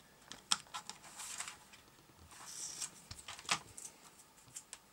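Hands working at the plastic case of a clock radio kit: sharp clicks and knocks of the case being handled, with two short scratchy rasps of sticky tape being peeled off it.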